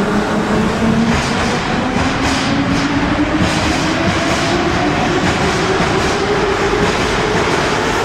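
81-717/714 metro train accelerating out of the station. Its traction motors whine, rising steadily in pitch as it gathers speed, and the wheels clack over the rail joints.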